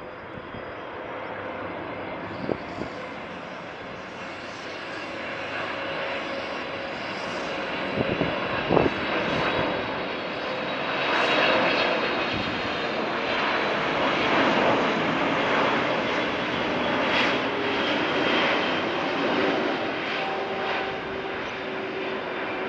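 Boeing 777 freighter's GE90 turbofan engines on final approach: a broad jet roar that grows louder over the first ten seconds or so as the plane nears, then holds, with a faint steady whine in it toward the end. A couple of short clicks sound near the start and about nine seconds in.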